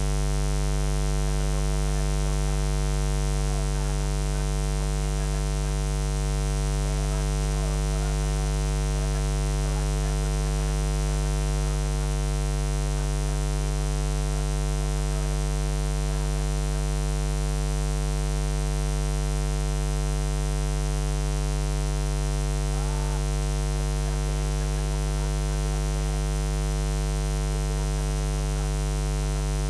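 Steady electrical mains hum, a low buzz with a ladder of higher overtones that never changes.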